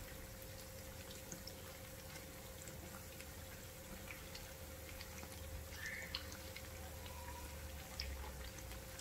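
Corn fritters sizzling faintly as they deep-fry in hot oil, with scattered small clicks and scrapes of a slotted spatula turning them in the pan.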